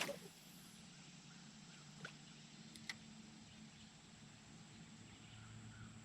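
Near silence: low steady background hum with a sharp click right at the start and two fainter clicks about two and three seconds in, plus faint bird chirps near the end.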